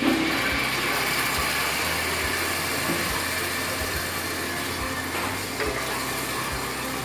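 A splash of water poured into hot oil and spiced onion paste in a pan, hissing and sizzling hard as it hits, then bubbling on while it is stirred with a spatula. This is the masala being loosened with water while it is sautéed.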